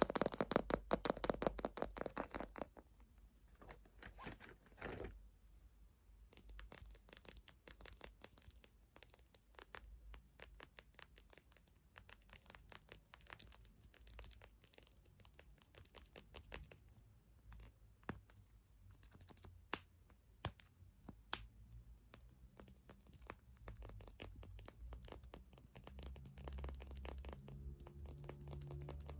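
Fingernails tapping and scratching on cosmetic containers. A fast run of taps opens, then slower, scattered taps and scratches follow.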